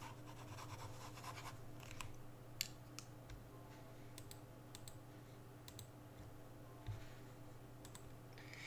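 Faint scratching of a ballpoint pen on paper for about the first second and a half, then scattered sharp clicks and taps. A steady low hum runs underneath.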